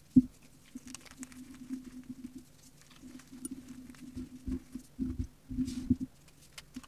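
Reformed gym chalk crushed and crumbled between fingers: dry crunching and crackling of powdery chalk chunks. A sharp crunch comes just after the start, and a run of heavier crunches between about four and six seconds in.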